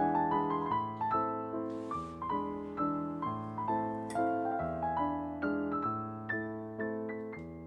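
Background piano music: a melody of single struck notes over chords, each note ringing and dying away.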